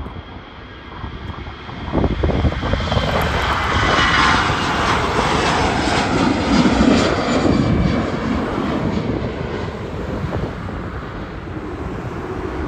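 Airbus A320's twin jet engines at takeoff thrust as it lifts off and climbs past. A loud rumble swells about two seconds in, with a whine that falls in pitch as the aircraft passes, then fades slowly.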